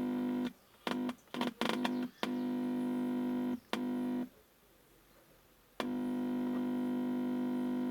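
Steady electrical hum buzzing through the Haier LTF42C360 TV's speakers as the audio amplifier IC is touched. It cuts in and out several times, with a gap of about a second and a half in the middle. The hum shows that the amplifier IC is working.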